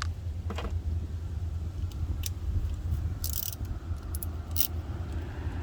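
A steady low rumble of background noise, with a handful of sharp metallic clicks and one short scrape about three seconds in, from hand tools taking out a 10 mm headlight-assembly bolt on the van.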